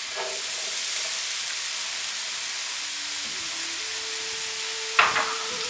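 Finely chopped onion frying in hot oil, a steady sizzle that grows briefly louder just after the start.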